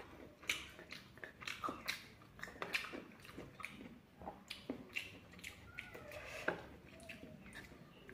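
A person chewing and biting fried pork close to the microphone, with irregular sharp mouth clicks and smacks, several a second.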